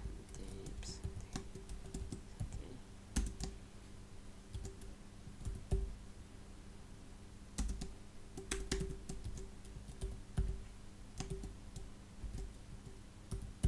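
Typing on a computer keyboard: irregular keystrokes in short runs with pauses between, over a faint steady low hum.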